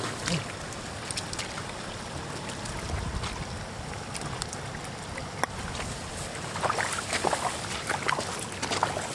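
Water splashing and sloshing in a shallow muddy trickle as hands grab at catfish, with scattered sharp clicks over a steady hiss; the splashing gets busier near the end.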